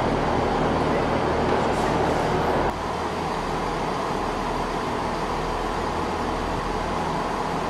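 Class 158 diesel multiple unit idling at the platform: the steady low hum of its underfloor diesel engines under a general noisy haze. The level drops slightly about two and a half seconds in.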